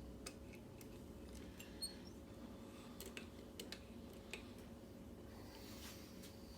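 Faint, scattered small clicks and taps of a Kwikset Smart Key lock and its metal parts being handled, over a low steady hum.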